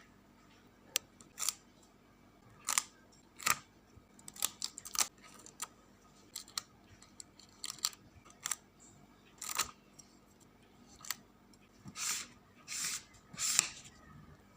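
Scissors cutting paper in a series of short, irregular snips, mixed with small clicks of paper and stationery being handled.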